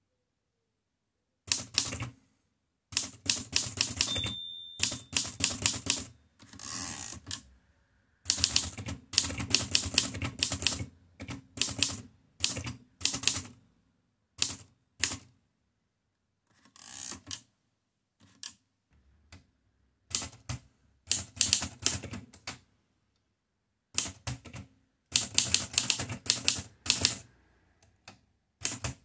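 Erika 5Tab portable manual typewriter being typed on: quick runs of sharp keystroke clacks broken by short pauses. The margin bell rings once about four seconds in, and the carriage is returned to start a new line soon after.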